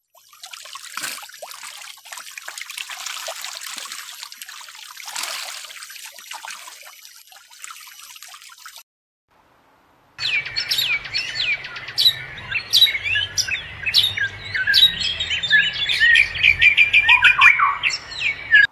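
Water splashing as a small bird bathes in a shallow pool, for about nine seconds. After a short pause, birds chirp and sing with quick gliding notes and rapid repeated trills, loudest near the end.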